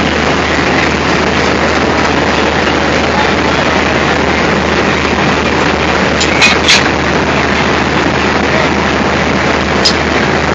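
ALCO diesel locomotive engine running steadily with a constant low hum. There are a few sharp metallic clinks: two close together a little past halfway and one near the end, as the coupling and hoses are handled.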